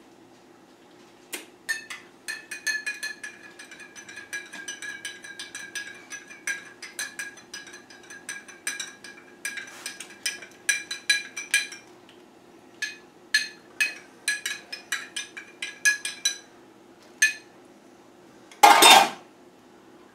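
A metal spoon stirring chocolate syrup into a glass of milk, clinking against the glass in quick runs of ringing taps. Near the end comes a single brief, loud rush of noise.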